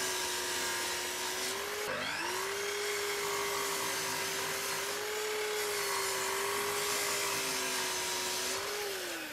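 Festool sliding mitre saw running while it cuts a wooden board to length, its motor holding a steady pitch. About two seconds in the pitch dips and climbs back, and near the end it falls as the blade winds down.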